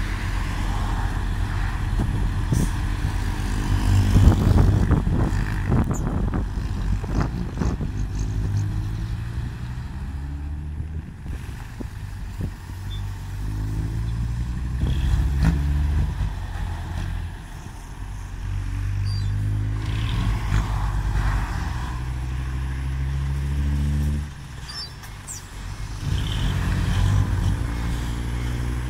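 Diesel engines of six-wheel dump trucks running and revving as they manoeuvre, the engine pitch rising and falling several times. A run of rattling knocks comes in the first several seconds.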